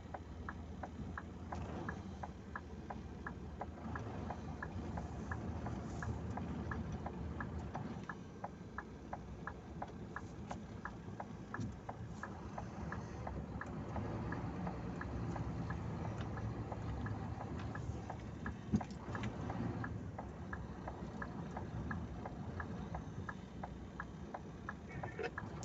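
Truck engine idling as a low steady hum heard inside the cab, with a regular light ticking about two to three times a second.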